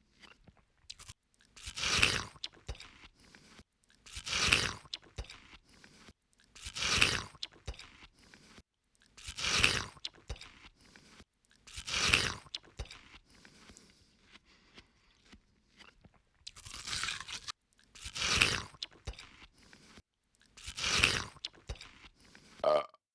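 An ape chewing something crunchy: about nine loud crunching bites, roughly one every two to two and a half seconds, with small clicks of chewing between them.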